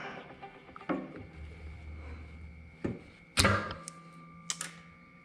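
Scattered metallic clicks and knocks of needle-nose pliers and hand tools on brake caliper parts as a small spring clip is worked onto a pad pin. The loudest is a sharp knock about three and a half seconds in.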